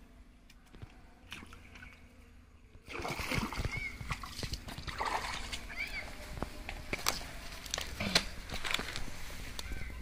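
Water splashing and sloshing, starting about three seconds in after a quiet stretch broken by a few light clicks.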